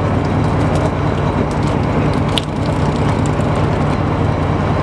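Fishing boat's engine running at a steady low hum, with scattered sharp clicks over it.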